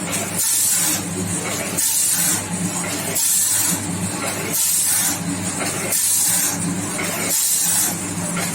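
Automatic granule packing machine running its bagging cycle. A steady motor hum lies under a hissing rush that repeats about every 1.3 seconds as each measured dose of popcorn kernels drops into a four-side-sealed bag.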